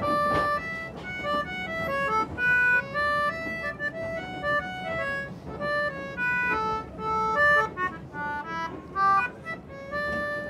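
A concertina playing a lively tune of quick, short notes, often two or three sounding together.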